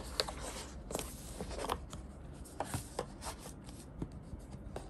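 A cardboard pastry box being handled and its lid opened, with cardboard rubbing and sliding and scattered light taps and clicks.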